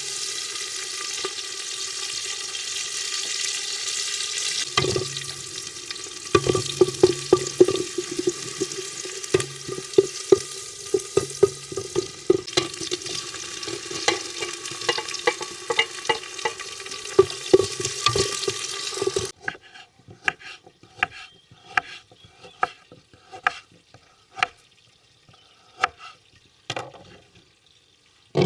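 Food frying and sizzling in a pot while a spoon scrapes and knocks against it in stirring. The sizzle stops suddenly about two-thirds of the way through, leaving only separate knocks and scrapes of the spoon on the pot.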